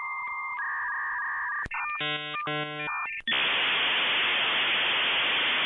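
Dial-up modem handshake sound effect: steady high beeping tones, then two short harsh buzzes, then a loud steady hiss from about three seconds in.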